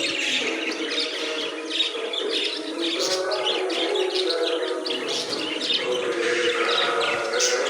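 Small birds chirping and calling repeatedly, many short chirps in quick succession over a steady low held tone.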